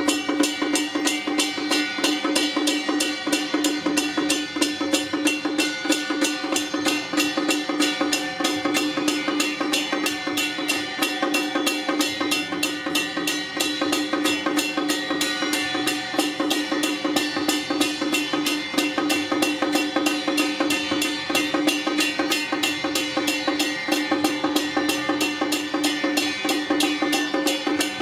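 Temple procession percussion: fast, steady drum and cymbal beating with a sustained pitched tone held over it, going on without a break.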